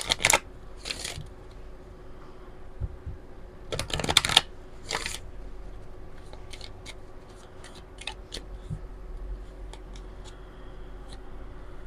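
A deck of oracle cards being shuffled by hand: a few short bursts of shuffling, the longest about four seconds in, then a run of light clicks and taps as the cards are handled, over a faint steady hum.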